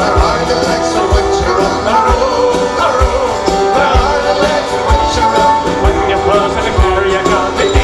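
Live band playing an instrumental passage of an Irish folk tune: a harmonica melody with held, bending notes over strummed guitars and a steady bass-drum beat.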